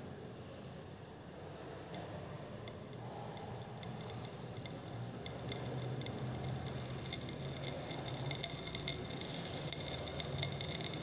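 A white salt crackling as it is heated in a dry test tube over a Bunsen burner flame: sharp crackles start sparsely about two seconds in and grow faster and louder. The crackling is decrepitation, which the teacher takes to mean that lead nitrate or barium nitrate may be present.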